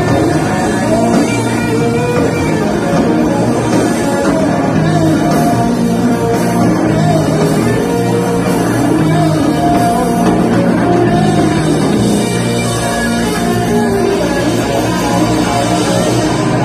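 Live rock band playing loud, with electric guitars and drums, heard from among the audience.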